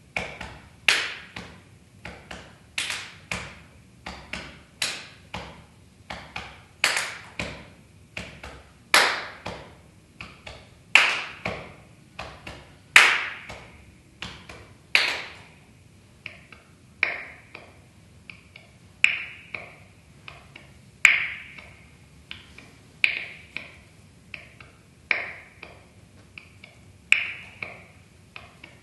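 Finger snaps in a steady rhythm, each sharp and bright with a short ring of hall reverberation. For about the first fifteen seconds a loud accented snap falls every two seconds with lighter snaps between, then single snaps come about once a second.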